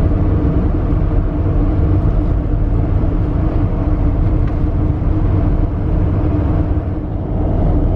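A running engine: a steady low rumble with a constant hum.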